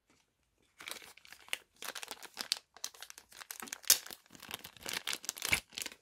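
Clear plastic packaging bag crinkling in the hand as it is torn open and a small plastic toy part is pulled out, in irregular crackles that cut off abruptly.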